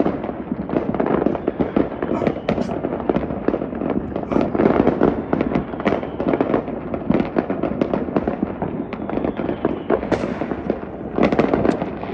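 Fireworks and firecrackers going off all around in a dense, unbroken crackle of pops and bangs.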